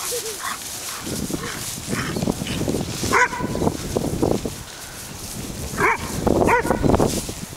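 Black-and-tan dog barking in play: a bark about three seconds in and two more near the end, over the scuffle of running feet in grass.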